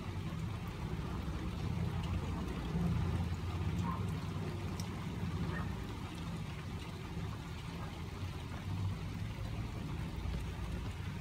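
Steady low rumble that swells slightly a few seconds in, under a faint hiss of light rain.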